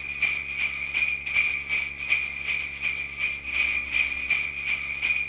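Sleigh bells jingling, shaken in a steady rhythm of about three shakes a second.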